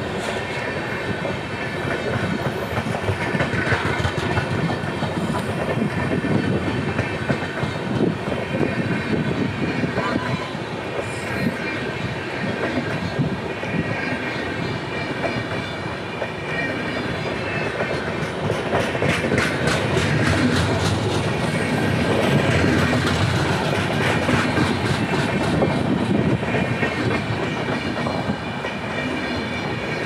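LHB passenger coaches of an Indian Railways express rolling past: a steady rumble of steel wheels on rail with clickety-clack over the rail joints. A quick run of clicks comes a little past the middle.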